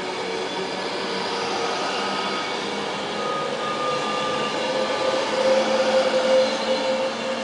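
Class 390 Pendolino electric train pulling away from the platform: steady whining tones that creep slightly up in pitch as it picks up speed, over a rushing noise from the passing coaches, getting louder about five to six seconds in.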